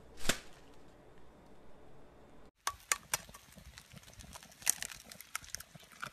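A single sharp click, then quiet. After a short gap comes irregular crackling and sharp clicks from a cast-iron skillet of sweet-potato cubes cooking over a small open fire, with a louder click as an egg is cracked into the pan.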